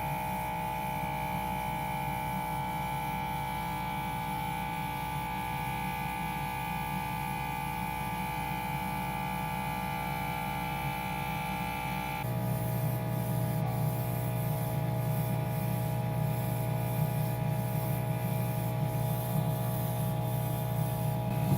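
A small electric motor hums steadily. About twelve seconds in, its tone changes abruptly to a slightly louder, lower-sitting hum.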